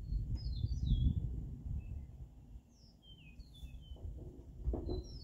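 Small birds chirping, short falling chirps in two clusters, over a steady low rumble of outdoor background noise.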